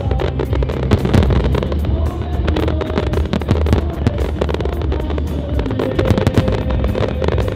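Show music with fireworks going off throughout: many sharp pops and crackles over a heavy low rumble.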